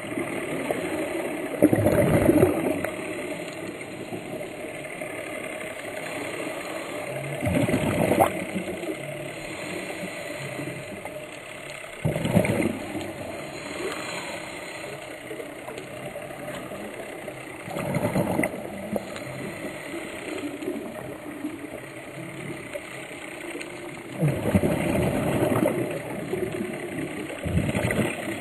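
Scuba diver's regulator heard underwater: exhaled air bubbles out in a rush five times, about every five to six seconds, over a steady underwater hum.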